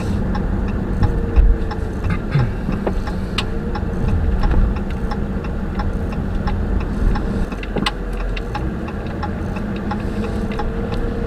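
Cabin sound of a 2015 Dodge Charger R/T being driven: a steady low engine and road rumble, with scattered light clicks.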